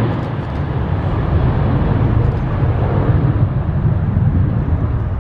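Jet engines of a Boeing 767-300ER freighter, a deep steady rumble with a higher hiss that thins out over the last couple of seconds.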